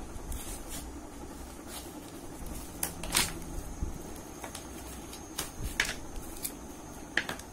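Light handling noise from a smartphone held and pressed in the hands: a few scattered sharp clicks and taps over low room noise.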